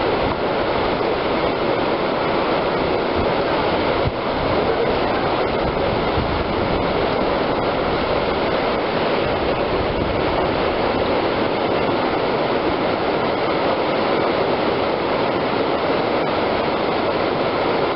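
Whitewater rapids rushing steadily, a loud continuous churn of water over rocks.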